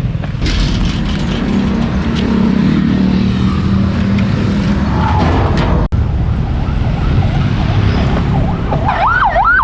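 Street traffic rumbling, with an engine droning through the first few seconds. About nine seconds in, a siren starts a fast rising-and-falling yelp, two to three sweeps a second.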